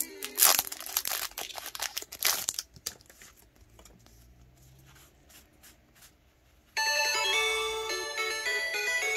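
Plastic wrapping of Pokémon trading-card packaging crinkling and tearing as it is opened, loud and busy for the first two and a half seconds, then only a few faint rustles. Music starts abruptly about seven seconds in.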